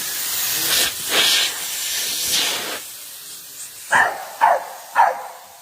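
A loud, steady hiss for about three seconds, then a dog barks three times in quick succession.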